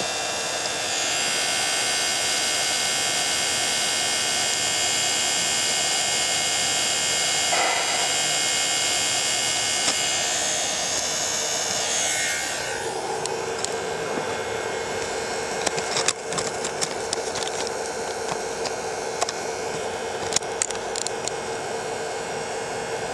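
Small electric pump motor of a model tanker trailer running with a steady whine while unloading. About twelve seconds in it settles to a quieter, lower steady tone, with scattered sharp clicks and ticks after that.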